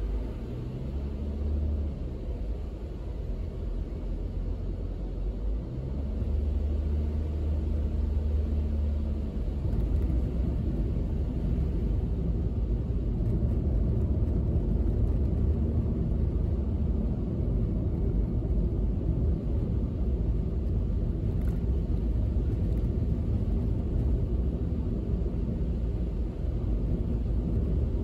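Car cabin noise while driving: a low engine and road rumble with the tyres running on a wet road. A faint engine hum rises and falls during the first ten seconds, then the rumble settles into a steadier, fuller drone.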